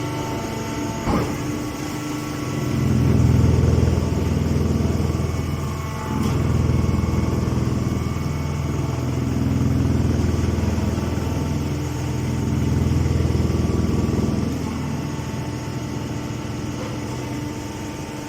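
An engine running steadily, its sound swelling louder every three to four seconds as if taking on load in cycles, with a brief click about a second in.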